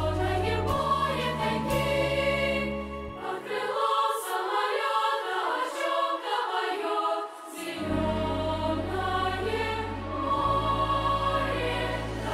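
Choir singing with instrumental accompaniment over long-held deep bass notes; the bass drops out for about four seconds in the middle, leaving the voices and higher parts, then returns.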